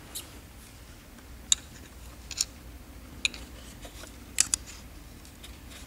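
A few sharp, light clicks and taps at irregular intervals from hand tools working on the brass pump head of a Kranzle K1122TST pressure washer. The loudest pair comes about four and a half seconds in.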